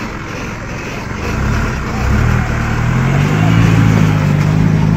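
Light cargo truck's engine running under load as the truck drives past at close range, its steady low hum growing louder from about a second in.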